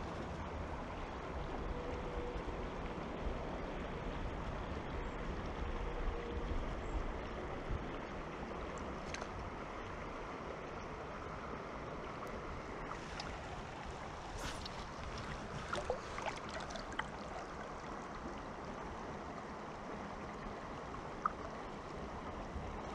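Steady rush of flowing river water, with low wind rumble on the microphone. A few faint ticks come in the second half.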